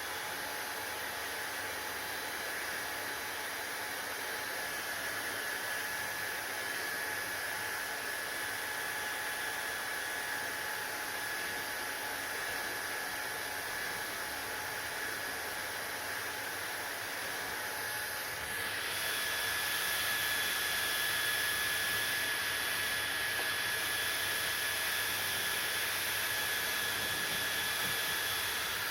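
Hair dryer running steadily: a constant rush of air with a high, thin whine. About two-thirds of the way through it gets louder and brighter.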